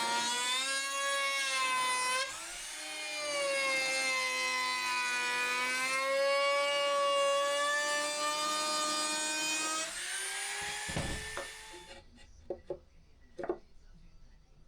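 Handheld electric power tool running with a steady whine, its pitch drifting up and down as the load changes, with a brief dip about two seconds in. It stops about ten seconds in, and a few sharp knocks follow.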